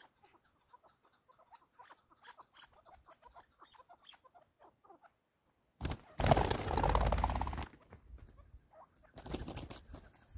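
Chukar partridges giving soft, rapid clucking calls, faint and scattered. About six seconds in, a loud whirr of wings as a partridge flies close past for nearly two seconds, then a shorter flutter of wings near the end.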